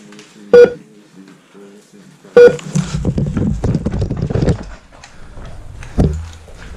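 KWA LM4 gas blowback airsoft rifle firing two single shots about two seconds apart, each a sharp crack with a brief metallic ring. After them comes a couple of seconds of scuffling handling noise, and there is one thump near the end.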